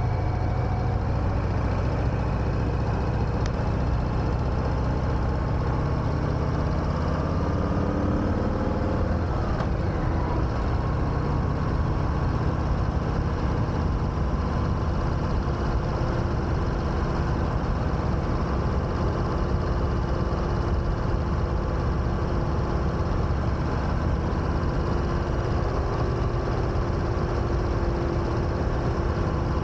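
2021 Harley-Davidson Sport Glide's Milwaukee-Eight 107 V-twin running under way, its note climbing and then dropping back about nine seconds in, then holding steady, with wind and road noise throughout.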